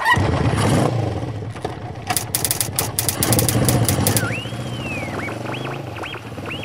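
Motorcycle engine running, with a run of sharp clicks about two to three seconds in and high whistling glides that rise and fall in the last couple of seconds.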